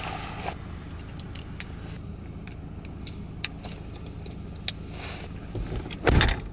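Car engine idling, heard from inside the cabin, with a few sharp clicks and a louder knock or rustle near the end.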